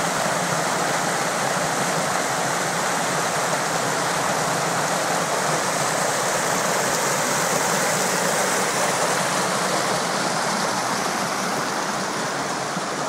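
Gunnerside Beck, a fast upland stream, rushing steadily over rocks.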